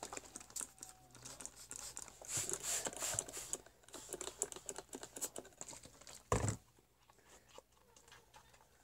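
Plastic trigger spray bottle squirting slime activator in short hisses, mixed with sticky clicks and squelches of glue slime being worked by hand. A single thump comes about six seconds in as the bottle is set down.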